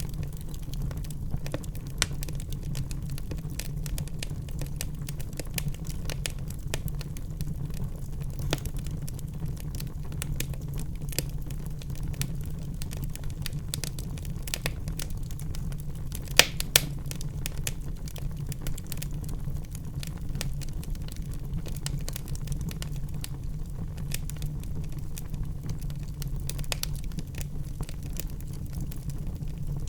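Wood fire crackling in a fireplace: many small snaps over a steady low rumble, with two louder sharp pops close together about halfway through.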